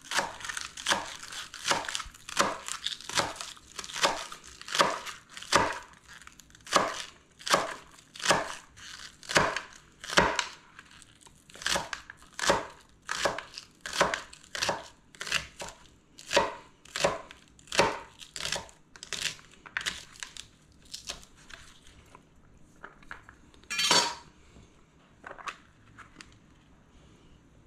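Chef's knife chopping green onions on a plastic cutting board: sharp, even knocks of the blade about twice a second. The chopping thins out and stops about three-quarters of the way through, followed by one louder knock.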